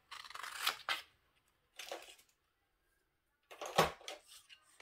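An adhesive sheet being cut off and handled: short scraping and rustling noises, then a louder knock about three and a half seconds in.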